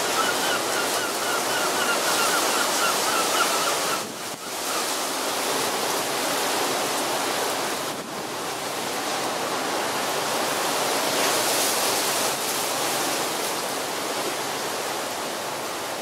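Strong wind and choppy estuary water: a steady rush of noise, with a wavering high tone over it for the first four seconds.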